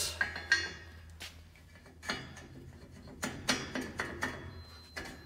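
Steel band peg and locking pin being fitted into a hole in a power rack's steel base: a scattered series of short metal clicks and knocks, some with a brief ring.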